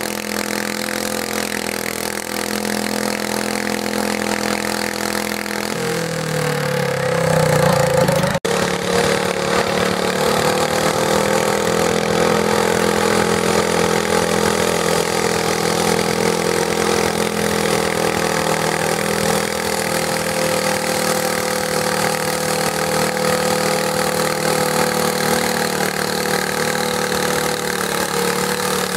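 Garden tractor engine running steadily, then revved up about six seconds in and held at high, steady revs, as in a full-throttle pull. The sound cuts out for an instant just after the rev-up.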